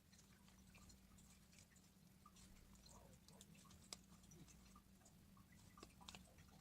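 Slime being squeezed and worked by hand, making faint, irregular sticky clicks and small wet pops, with one sharper click about four seconds in.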